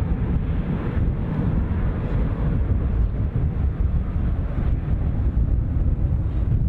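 Steady noise of a jet aircraft in flight: an even, low rushing rumble with no distinct tones or knocks.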